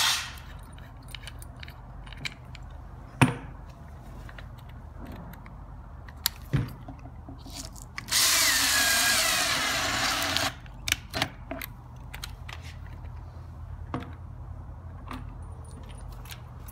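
Power drill with a 9/16 socket running for about two and a half seconds with a wavering whine, driving an IMP anchor's screw into an insulated metal wall panel until the ferrule seats in the metal skin. Before it come a few scattered sharp clicks and knocks from handling the tool and anchor, the sharpest about three seconds in.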